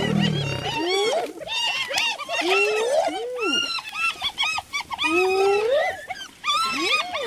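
A pack of spotted hyenas calling all at once while they mob a lion: many overlapping short squeals, with several long rising whoops. A low growl sounds in the first second.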